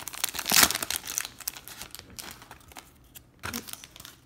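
Plastic wrapper of a 2018 Bowman baseball card pack being torn open and crinkled by hand. The crinkling is loudest in the first second, then thins to scattered rustles, with one more brief rustle near the end.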